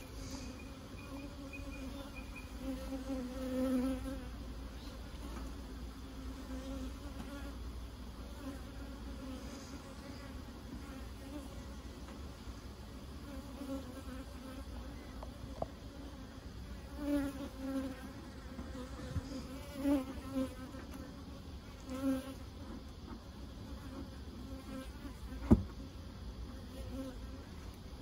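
Honey bees buzzing around an open hive, a steady hum that swells several times as bees fly close by. One sharp knock comes about three-quarters of the way through.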